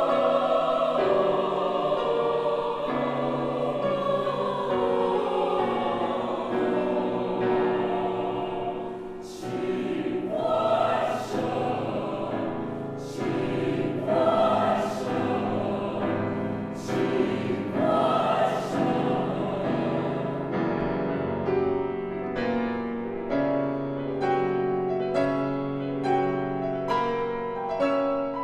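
A choir sings slow, sustained chords with piano. In the middle the voices land together on short hissing consonants about every second or two, and in the last third the piano comes to the fore with quick repeated notes.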